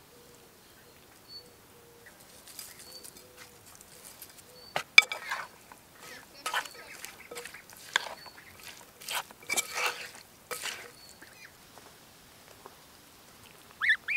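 A spoon tossing wet chopped salad in a clay bowl: an irregular run of scraping, rustling strokes. Near the end a domestic goose starts honking.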